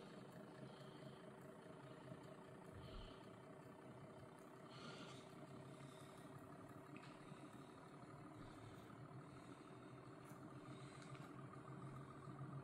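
Faint, steady hum and whir of a home-built 180-degree pulse motor running, its rotor spinning under the pulses of its bifilar copper coils.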